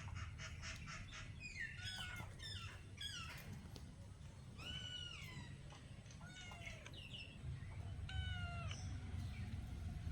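Cats meowing: a string of short, high-pitched meows, several falling in pitch. A quick pulsing chatter opens the run.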